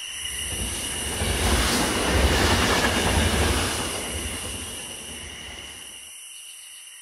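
Rumble of a passing vehicle, plausibly a train, swelling over the first second or so, loudest two to three seconds in, then fading away, with its deep low end cutting off abruptly about six seconds in.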